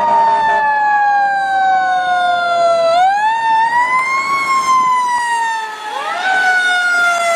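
Fire-engine siren wailing: a slow falling tone that swoops back up about three seconds in, falls again, and rises once more near the end.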